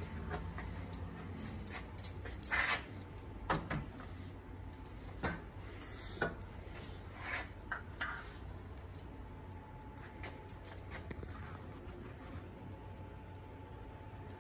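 Small metal sewing-machine bobbins and a bobbin case clicking and clinking as they are handled, in a handful of separate clicks, the loudest about two and a half seconds in, thinning out in the second half, over a low steady hum.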